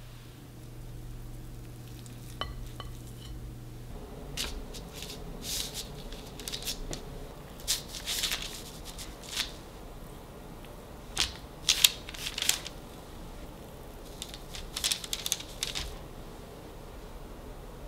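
Cookie dough being spooned onto a parchment-lined baking tray: clusters of short scrapes and rustles as a metal spoon and wooden spatula push soft dough onto the paper. A low steady hum runs for the first few seconds, then stops abruptly.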